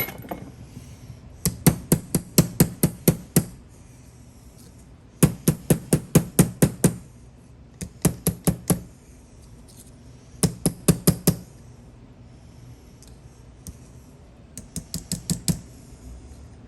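Small hammer tapping on the metal of a small antique lock, in five quick runs of sharp light taps, about five a second.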